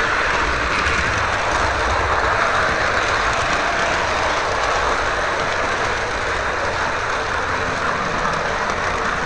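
MTH O gauge R40 model subway car running along its track, a steady rolling and motor noise heard close up from on board the moving car.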